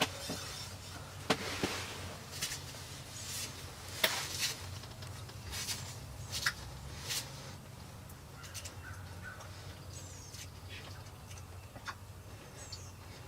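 Quiet spring woods with a scattering of sharp clicks through the first half, the loudest about a second and four seconds in, and a few faint, high bird chirps later on.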